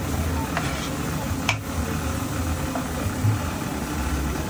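A few sharp knife taps chopping tomatoes on a wooden block, the loudest about a second and a half in. Under them, steady sizzling of pav bhaji cooking on a large flat iron griddle (tava).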